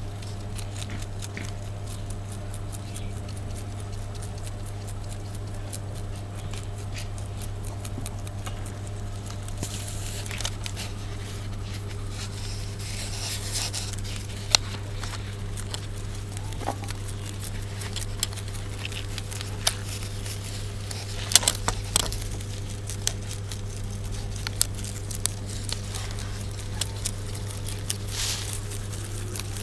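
Rabbits chewing fodder: a dense run of small crunching clicks, busier in the second half with a few sharper, louder ones, over a steady low hum.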